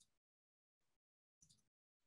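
Near silence on a video call, broken by a few faint, brief sounds that cut in and out abruptly, the largest about a second and a half in.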